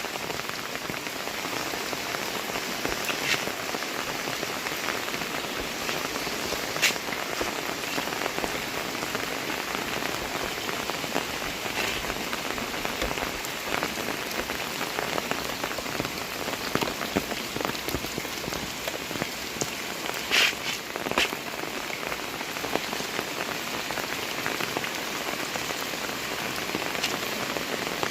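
Heavy rain falling steadily, with a few louder single drops or taps standing out sharply, the strongest about twenty seconds in.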